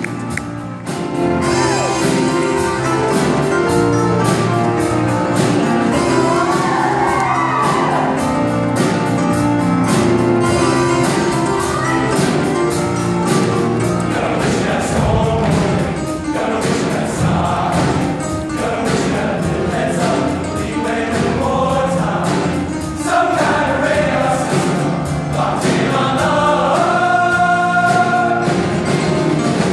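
Show choir singing a pop-style number over live band accompaniment with a steady beat.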